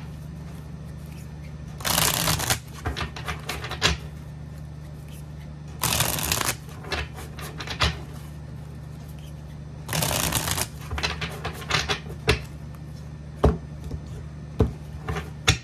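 Tarot deck being riffle-shuffled by hand: three quick fluttering riffles about four seconds apart, each about half a second long, with light taps and clicks of the cards being squared and bridged in between. Near the end come a few single taps as the deck is cut.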